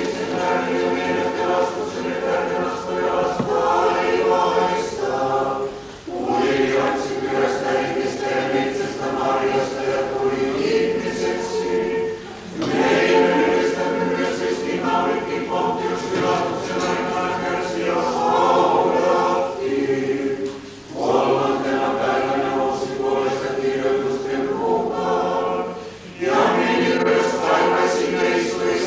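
Church choir singing Orthodox liturgical chant unaccompanied, in sustained phrases separated by short breaks every five to eight seconds.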